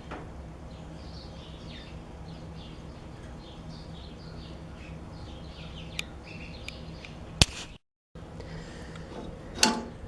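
Faint, quick bird chirps repeating over a steady low hum, with a sharp click about seven seconds in and another near the end.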